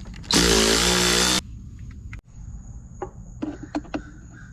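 A cordless power tool runs in one loud burst of about a second, starting and stopping abruptly, followed by a few light clicks.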